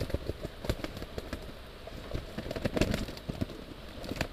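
Nylon fishing bag being handled and opened on the bank: irregular crackly rustling and clicks, busiest a little before three seconds in.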